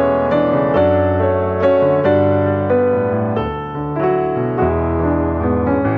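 Piano music: a melody of sustained notes, a new note struck roughly twice a second.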